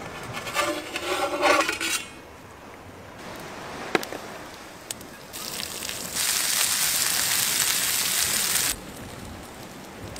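Fish frying in oil in a pan, a loud sizzle that lasts a couple of seconds in the second half and cuts off abruptly. Earlier there is a ringing clatter of the metal pan and plate, then a single sharp knock about four seconds in.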